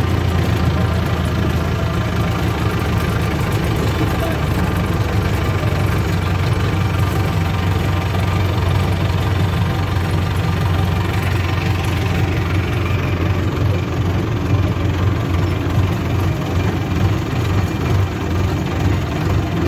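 Tractor diesel engine running steadily under way, heard from the driver's seat, with a constant low drone.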